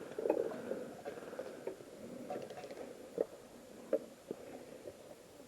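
Soft rustling with a few scattered sharp clicks and taps, the loudest near four seconds in.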